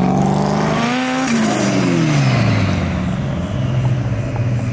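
Car engine revving hard as the car drives past. The pitch climbs, then drops away as it goes by, leaving a steadier low engine note.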